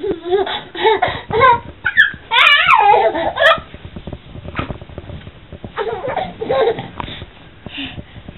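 A baby vocalizing: a string of high squeals and babbling calls that slide up and down in pitch, loudest about two to three and a half seconds in, with quieter calls later.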